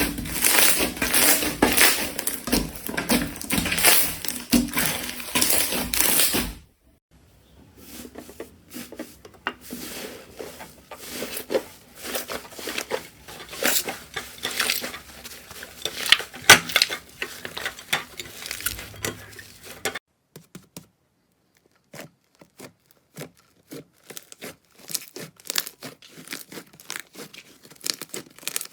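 Slime being pressed and squeezed by hand, giving dense crackling and popping clicks. The crackling is loud and packed at first, changes suddenly to quieter scattered crackles, then after a brief silence to sparse separate pops.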